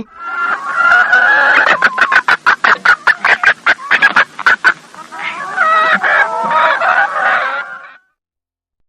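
Hen clucking: a fast run of short clucks, about four or five a second, then longer drawn-out calls. The calls stop suddenly about eight seconds in.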